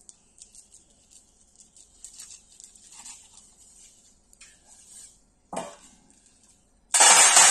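Damp cloth rustling and wet stone chips clicking faintly against each other as they are rubbed surface-dry for an aggregate specific gravity test. Near the end comes a loud clatter of about a second, the stone chips against the steel tray.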